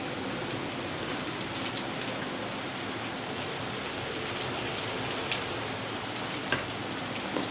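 Shallots frying in oil in a clay pot, a steady sizzling hiss with a few faint clicks.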